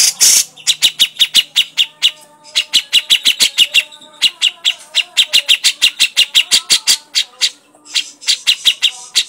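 Grey-cheeked bulbul (cucak jenggot) giving its harsh chattering call: loud runs of rapid rasping notes, about seven or eight a second, broken by short pauses.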